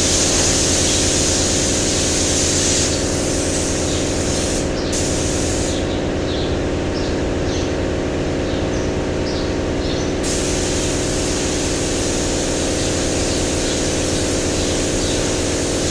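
Air-driven paint spray gun hissing as it sprays the top coat, pausing about three seconds in and starting again about ten seconds in, over a steady machine hum.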